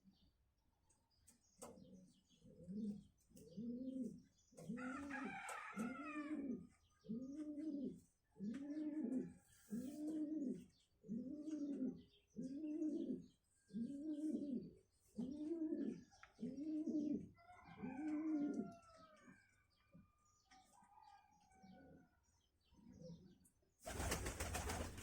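A dove cooing in a long, even series of low coos, about one a second, that stops after about eighteen seconds, with small birds chirping faintly. A short burst of noise comes near the end.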